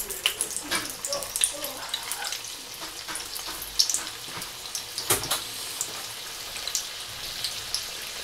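Tequeños (dough-wrapped cheese sticks) frying in hot oil in a pan: a steady sizzle with scattered small crackles and pops, and one sharper crack about five seconds in.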